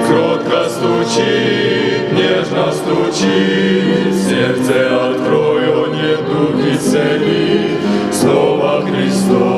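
Choir singing a Russian Baptist hymn in harmony, with the words still going.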